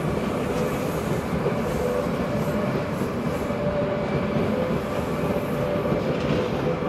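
Stadler FLIRT 3 electric multiple unit (SBB RABe 523) rolling slowly through a rail yard: steady running noise with a faint, steady whine.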